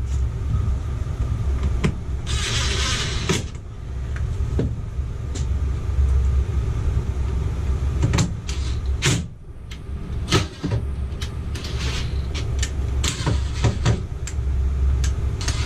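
Cordless drill driving screws into the plastic ceiling assembly of a camper's roof air conditioner: a short run of the drill and many scattered clicks and knocks of the driver and plastic, over a steady low rumble.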